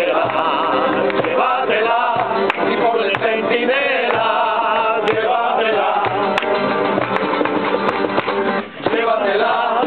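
Several acoustic guitars strumming together while men sing, with a short dip in the music near the end.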